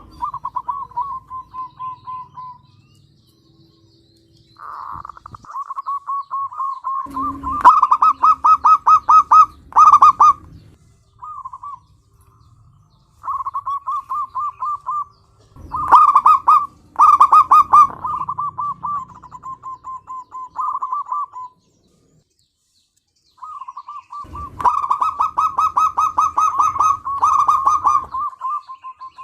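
Zebra dove (perkutut) cooing vigorously: several long phrases, each a fast pulsing run of coos broken by short pauses. Three of the phrases are much louder and harsher than the rest.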